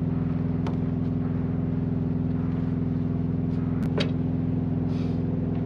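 Semi-truck's diesel engine idling steadily, with a few light clicks and knocks from flags and rods being handled on the flatbed's metal deck, a cluster of them about four seconds in.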